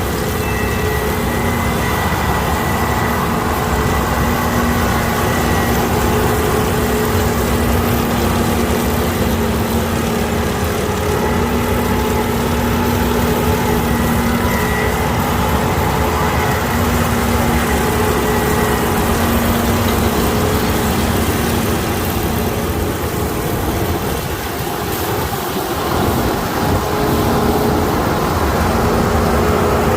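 Kukje KC5130 combine harvester running steadily, a constant mechanical drone with a whine that fades in and out.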